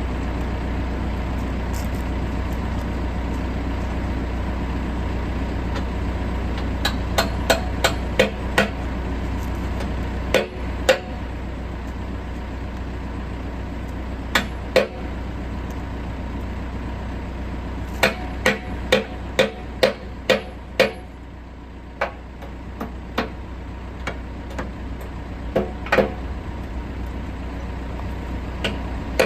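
Hammer blows on steel, coming in clusters with pauses between, over the steady hum of the backhoe's diesel engine idling. The bucket pins are being knocked out to take the bucket off.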